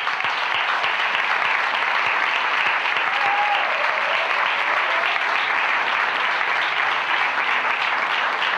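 Audience applauding: dense, steady clapping from a seated crowd at a live music performance.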